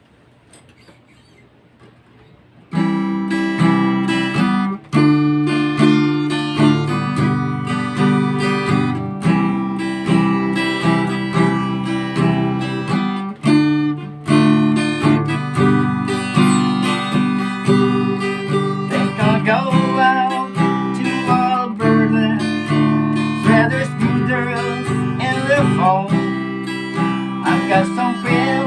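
Acoustic guitar strumming chords, starting suddenly about three seconds in after a faint quiet stretch, with a picked melody line weaving over the chords in the second half.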